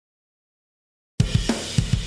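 Silence, then a little over halfway through a backing track with a full drum kit cuts in abruptly: punchy kick and snare hits with hi-hat and cymbals.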